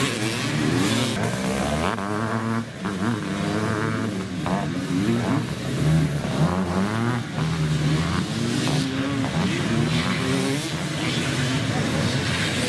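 Several motocross bike engines revving hard and dropping back as the riders take a dirt-track bend, their pitches rising and falling and overlapping.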